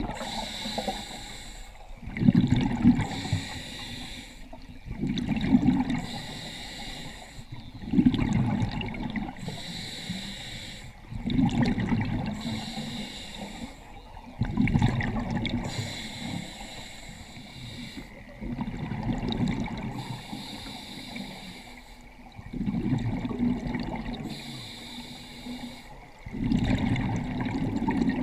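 Scuba diver breathing underwater through a regulator: a hissing inhale, then a loud rush of exhaled bubbles, repeating about every three to four seconds.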